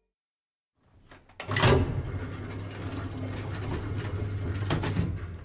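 Sound effect of an elevator: a sliding door or gate shutting with a loud clatter about a second and a half in, then the car running with a steady low hum and rattle.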